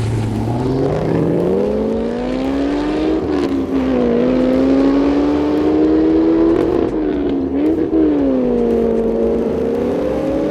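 Holden VE Commodore V8 running through a VAREX adjustable exhaust, revving and accelerating. Its pitch climbs steeply at first, then holds high, dipping briefly a few times before each new pull.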